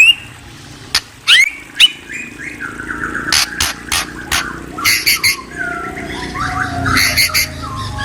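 Murai songbird singing: sharp clicks and quick rising whistles at first, then a busier run of chattering, trilled notes from about three seconds in.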